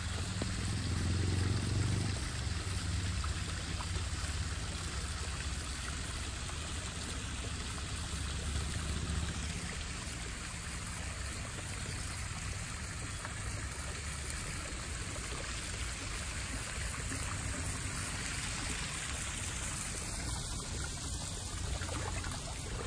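Steady splashing trickle of a small rock waterfall spilling into a backyard koi pond, with a low rumble underneath during the first half.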